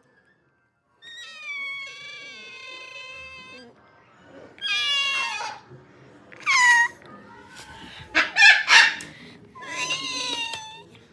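Cockatiels calling: a held whistled note, then a string of loud, harsh screeches that slide downward in pitch, the agitated calls the owner calls angry.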